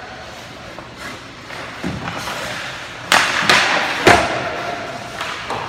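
Hockey pucks being shot on ice: a soft knock, then three sharp cracks of stick on puck and puck against pads or boards, the loudest two about a second apart, each ringing briefly.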